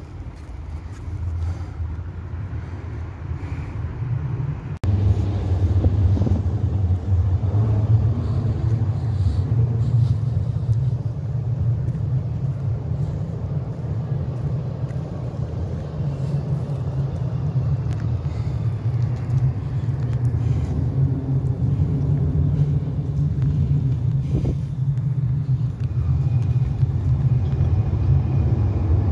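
A steady low rumble with little above it. It swells over the first few seconds and steps up abruptly about five seconds in.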